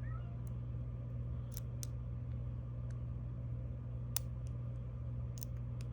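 Scattered faint clicks of a short flat hook and tension wrench picking a GOAL S pin-tumbler lock, working a stubborn pin, the sharpest click about four seconds in. A steady low hum runs underneath.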